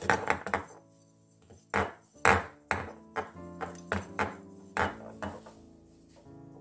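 A series of about a dozen sharp, irregularly spaced knocks or taps, the hardest about two seconds in, over soft background piano music.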